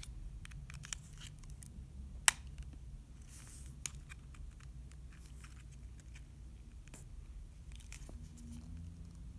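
Small clicks and scrapes of a smartphone's parts being pried and handled during a teardown, with one sharp click a little over two seconds in.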